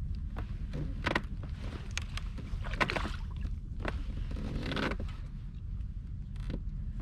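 Steady low rumble of wind and water around a small inflatable boat, with scattered knocks and scrapes of gear being handled aboard.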